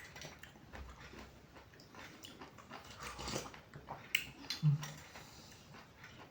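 Close-miked eating of an iced syrup drink with nata de coco: scattered small clicks and chewing or mouth sounds, with one louder low thump about three-quarters of the way through.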